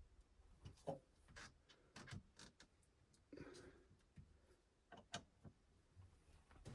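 Faint, irregular clicks and ticks of a small screw being turned into a plastic shift selector collar, with a soft rustle about halfway through.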